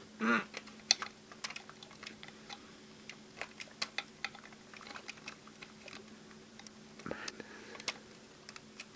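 Light, irregular clicks and taps of hard plastic toy parts as a small ranger figure is handled and fitted against a Power Rangers Samurai megazord toy.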